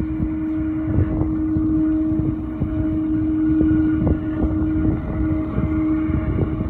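Jet airliner's engines running at low thrust on the runway before takeoff, a steady whine, with wind buffeting the microphone.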